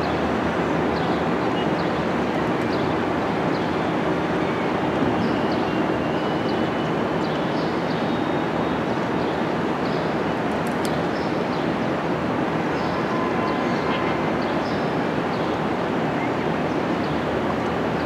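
Steady, dense rushing background noise that holds level throughout, with faint short high chirps or clicks scattered through it.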